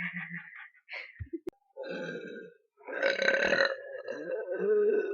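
A person burping: a burp trailing off at the start, a short one about two seconds in, then a long, drawn-out burp from about three seconds in.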